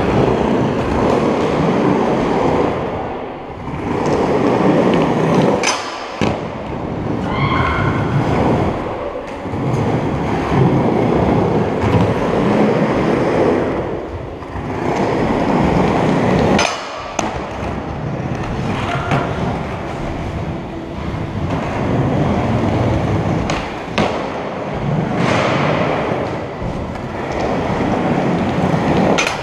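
Skateboard wheels rolling continuously over a concrete skatepark floor and ramps, with a few sharp clacks of the board hitting the ground.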